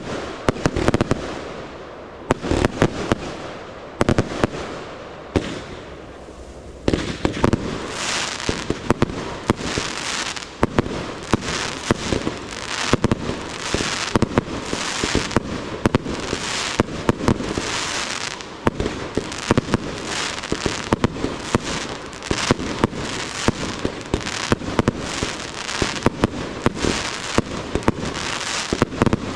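Professional aerial fireworks display: shells launched and bursting in quick succession, a dense run of sharp bangs. About seven seconds in the firing gets denser and louder, with a steady hiss filling the gaps between bangs.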